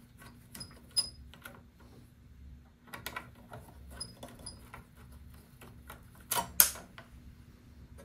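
Small metal clicks, ticks and scrapes of a screwdriver working the screw terminals on a switching power supply's terminal block as the mains wires are loosened and taken off. The loudest clicks come about six and a half seconds in.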